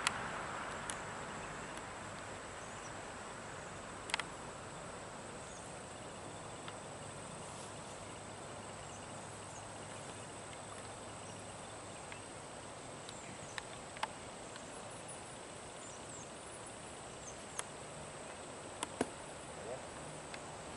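Outdoor summer ambience dominated by a steady high-pitched insect trill, with faint high chirps and a few sharp clicks scattered through it. A louder noise fades away during the first couple of seconds.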